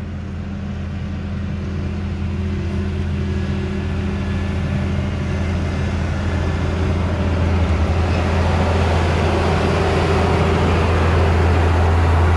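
Combine harvester driving up alongside, its engine and machinery noise growing steadily louder over a steady low engine hum.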